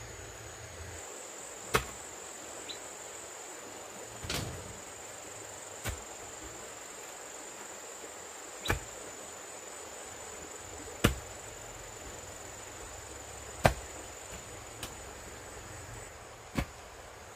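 Sharp single strikes of a tool on bamboo, about one every two to three seconds, seven in all. A steady high-pitched insect drone runs behind them.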